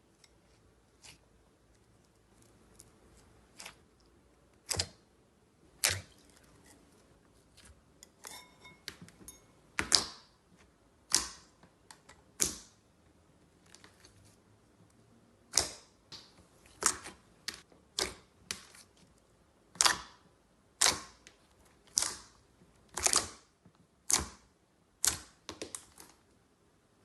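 Slime being pressed and squeezed, giving a series of sharp, clicky air-bubble pops at irregular intervals, about one a second and closer together toward the end.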